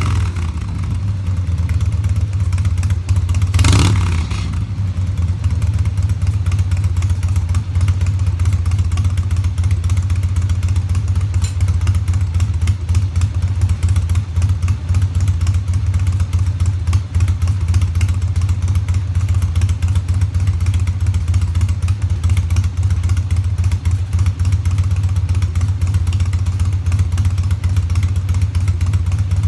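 1998 Harley-Davidson Dyna Wide Glide's Evolution V-twin running steadily at idle after a carburetor and intake manifold rebuild, choke off, with one brief louder surge about four seconds in.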